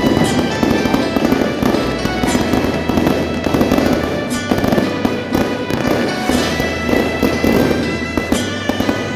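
Dense, continuous crackling of firecracker bangs, with music playing underneath.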